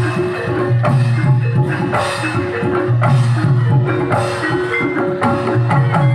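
Live jaranan gamelan music: fast, dense drum and wood-block-like strikes over ringing gongs and metallophone tones in a driving rhythm.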